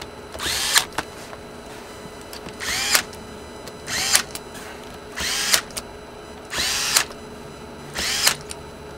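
Electric screwdriver driving the top-plate screws of an FX Impact airgun down in short runs, about six in all, each one whirring up in pitch and winding back down.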